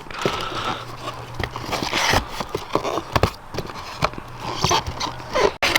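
A tightly packed cardboard parts box being handled and unpacked: rustling with irregular knocks and clicks as the parts are worked loose.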